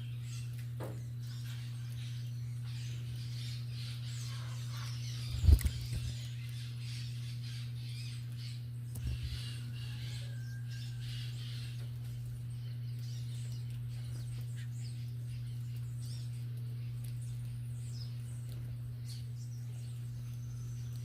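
Small wild birds chirping, over a steady low hum. A sharp thump about five and a half seconds in is the loudest sound, with a softer knock a few seconds later.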